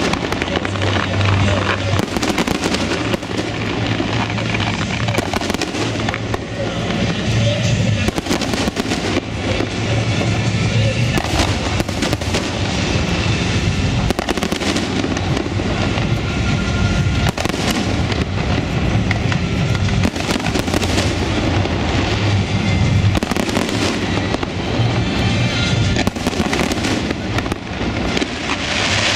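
Fireworks display: a dense barrage of aerial shell bursts, bangs and crackling following one another several times a second, with music playing alongside.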